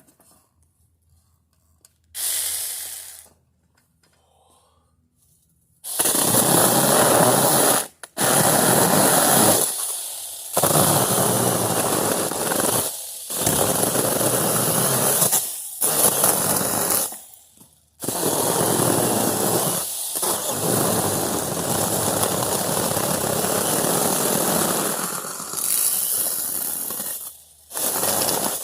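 Palm frond stalks being cut, a loud rasping noise in repeated bursts of one to five seconds with short pauses between, starting about six seconds in after one shorter burst.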